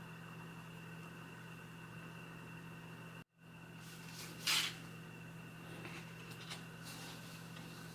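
Quiet room tone with a steady low electrical hum and a thin high whine, cut to total silence for a moment a little past three seconds in. About four and a half seconds in comes one short breathy hiss, the loudest sound here, followed by a few fainter ones.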